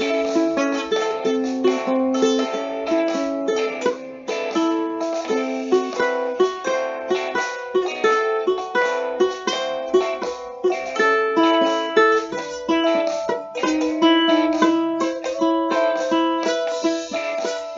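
Solo ukulele playing a lively boogie tune, picked note by note with short chords in a steady rhythm.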